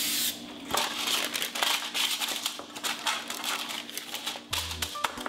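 A can of pan-release cooking spray hissing briefly at the very start, then parchment paper crinkling and rustling as it is handled and laid into a metal cake pan.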